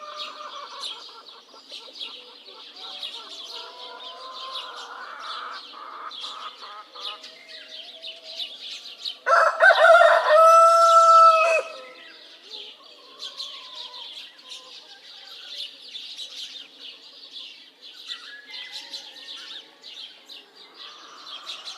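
A rooster crows once about nine seconds in, loud and lasting about two and a half seconds. Throughout, small birds chirp steadily and hens cluck.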